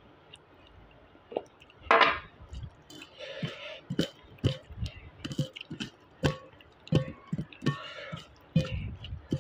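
Fingers mixing rice and dal on a stainless steel plate, wet squishing and light clicks against the plate. There is a louder knock about two seconds in.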